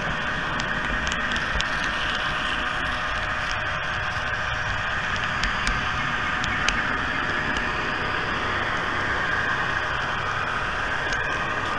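Steady whirring hiss of a model train running along its track, heard close up from a camera riding on it, with occasional light clicks.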